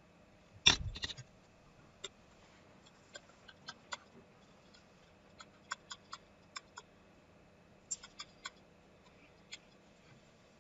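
A stylus tapping and clicking on a tablet during handwriting: scattered short, sharp ticks, with one louder thump a little under a second in.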